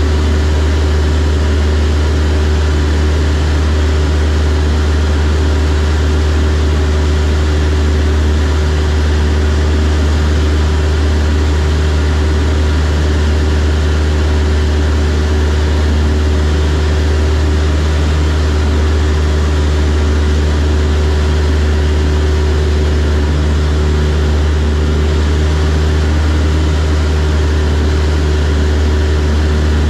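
Steady drone of a single-engine propeller light aircraft's engine and propeller in flight, heard from inside the cockpit, with a deep low hum and a constant higher tone above it.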